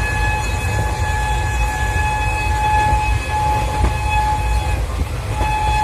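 A moving passenger train running with a heavy low rumble, heard through an open compartment window, with a long steady train horn blast that breaks off briefly about three seconds in, stops near five seconds and sounds again just before the end.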